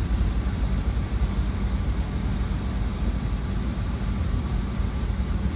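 Steady low rumble of a ferry under way at sea, with a faint steady hum over it and wind buffeting the microphone on the open deck.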